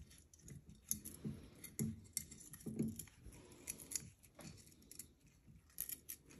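Heavy-gauge silver chain links clicking and grinding against one another as the chain, clamped in a bench vise, is twisted by hand with locking pliers to form curb chain. Irregular sharp metallic clicks mix with low strained grunts and breaths of effort, several times over.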